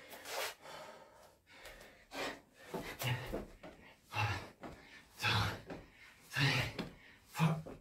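A man breathing hard from exertion during burpees with push-ups: short, forceful breaths about once a second.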